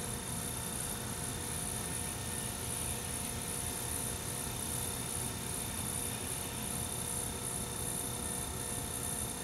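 Brent electric potter's wheel running steadily under a clay centering job, a constant motor hum with a steady high whine and no change in speed.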